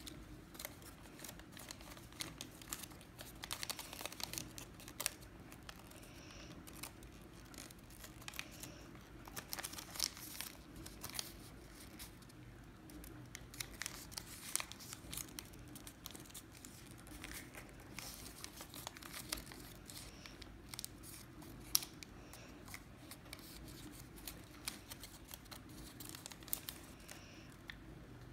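Origami paper being folded and creased by hand: irregular crinkling and short sharp crackles as the folds are pressed and shaped.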